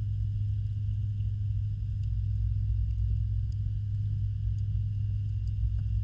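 Steady low hum and rumble picked up underwater, typical of a pond's pump and filtration running, with a few faint ticks over it.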